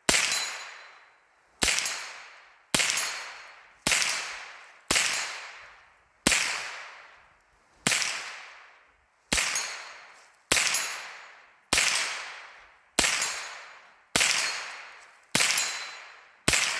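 AR-15 rifle fitted with a CMMG .22 LR conversion kit firing fourteen single shots in steady succession, a little over one a second. Each sharp crack is followed by a decaying echo.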